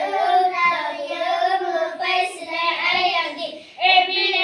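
A small group of children singing together, with a short pause for breath near the end before the next line.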